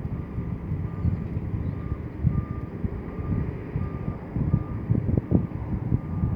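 A reversing alarm beeping steadily at one pitch, roughly three beeps every two seconds, over the low running of heavy diesel earthmoving machinery that rises and falls in surges.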